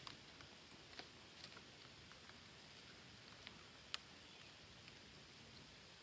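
Near silence with light rustling and a few faint, sharp ticks from parakeets clambering among leafy branches; the loudest tick comes about four seconds in.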